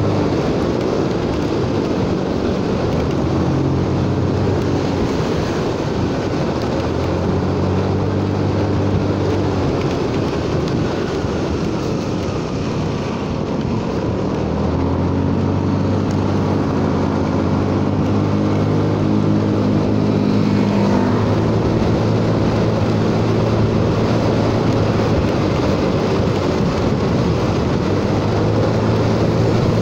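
Honda Forza 300 scooter's single-cylinder engine running under way, over a steady hiss of wind and tyres on the wet road. The engine note fades about ten seconds in and picks up again around fifteen seconds in.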